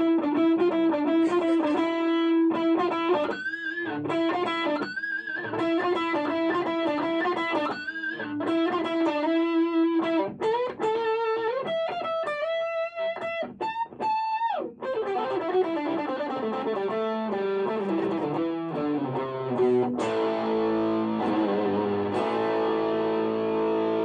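Electric guitar played through the Effects Bakery New Ginger Fuzz pedal with the fuzz turned fully up, heard from a small Roland Cube amp. It plays a sustained lead melody with several upward string bends, then a descending run, and ends on ringing chords near the end.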